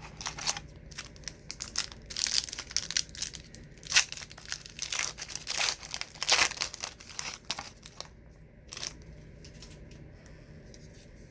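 Trading card pack wrapper being torn open and crumpled, an irregular crinkling and tearing that is densest in the first eight seconds, with one last short crinkle near nine seconds before it goes quiet.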